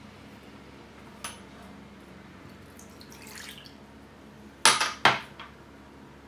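Kitchen glassware being handled: a light tap on the glass mixing bowl, milk poured from a glass into the bowl, then two sharp glass knocks about half a second apart, the loudest sounds, as the glassware is set down and moved.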